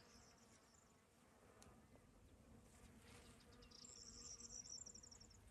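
Faint, high-pitched insect trill, a quick run of even pulses, heard briefly at the start and again about four seconds in for a second and a half.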